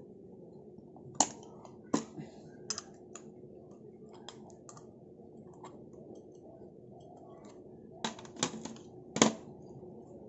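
Small metal parts of a bicycle bell being handled: scattered sharp clicks and taps, with louder knocks a little over a second in, about two seconds in, and a cluster near the end, over a steady low hum. No ringing tone is heard.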